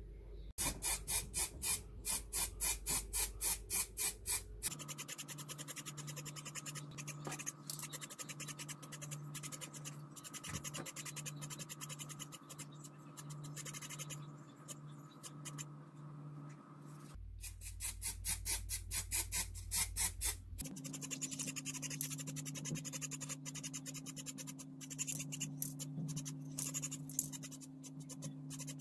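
Workshop noise in several spliced stretches: a steady low mechanical hum with scattered light clicks. In two stretches, near the start and just past the middle, there is a loud rhythmic rattle about three to four times a second.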